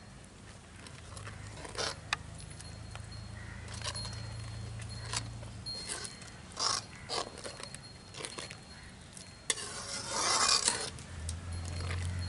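Long metal ladle stirring curry gravy in a large metal pot, scraping and clinking against the pot's sides in short, irregular strokes, with a longer scraping spell about ten seconds in.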